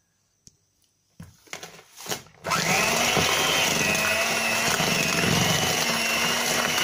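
Electric hand mixer starting after a few handling knocks, about two and a half seconds in, then running steadily with a high whine as its beaters work a thick butter-and-yolk cake dough.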